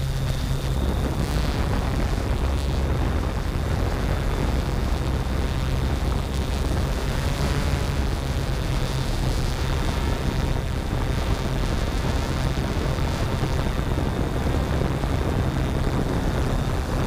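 Yuneec Typhoon G hexacopter's electric motors and propellers, heard from the camera on board, humming steadily in a hover.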